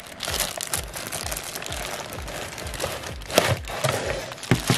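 Thin clear plastic bag crinkling and rustling as it is handled and pulled out of a cardboard box, with a few louder crackles about three and a half seconds in and again near the end.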